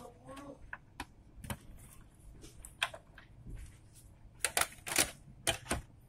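Sharp, scattered clicks and clacks of plastic and sheet-metal parts in a Dell OptiPlex 7010 small-form-factor case as the drive caddy and cables are handled and fitted back into place, with a quick run of louder clicks about three-quarters of the way through.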